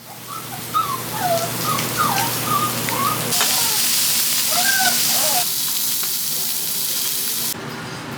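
Steady hiss of outdoor ambience with small birds chirping, short rising and falling calls repeated over the first five seconds. The hiss changes abruptly about three seconds in and again near the end.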